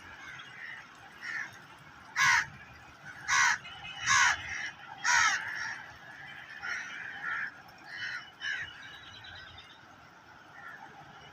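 Harsh bird calls: four loud ones in quick succession, about two to five seconds in, then several fainter ones.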